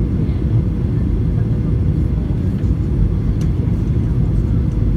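Steady low cabin rumble of a Boeing 737-900 in flight on descent, heard from a seat beside the wing: CFM56-7B turbofan and airflow noise, with a faint steady hum sitting above the rumble.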